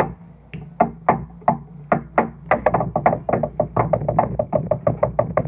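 Music with a sharp clicking, knock-like beat over a steady low tone; the beat quickens about halfway through.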